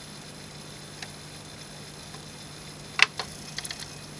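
Teac PD-56 CD player mechanism clicking as the laser pickup hunts for a track it cannot find: a faint click about a second in, then two sharp clicks about three seconds in followed by a quick run of light ticks, over a steady low hum.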